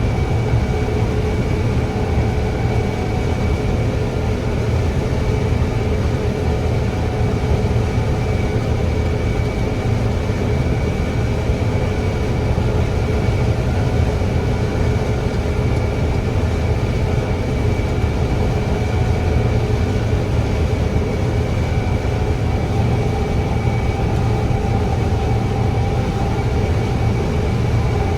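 Steady engine drone and road noise heard from inside the cab of a truck driving on the highway, unbroken throughout.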